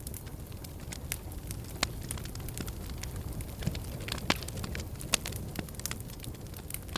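Fire in a fireplace crackling: a steady low rumble of flames under scattered sharp pops and crackles, a few of them louder, around the middle.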